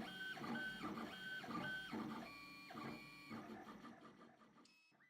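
3D printer's stepper motors whining in short, repeated moves as the print head travels back and forth, about two to three a second, shifting to a different pitch a little after two seconds and fading out near the end.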